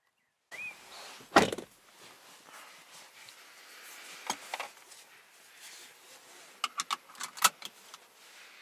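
Audi Q3's driver's door shutting with a single heavy thud about a second in. After it come a few light clicks and knocks of interior fittings being handled, with a quick run of sharp clicks near the end.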